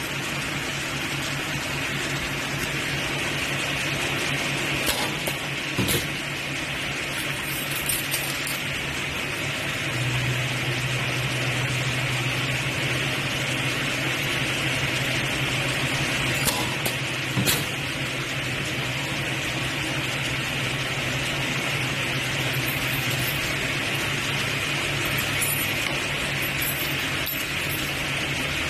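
Lampshade spot welding machine running with a steady electrical hum and hiss, the hum growing louder about a third of the way in and easing off near the end. A few sharp metallic clicks stand out over it.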